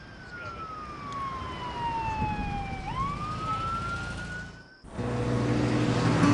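A siren wailing, its pitch falling slowly for about three seconds and then rising again before it cuts off. Acoustic guitar music starts right after.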